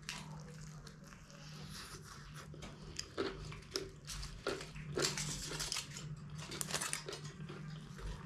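A person biting and chewing a mouthful of egg roll close to the microphone: a run of short wet mouth clicks and smacks, busiest in the second half.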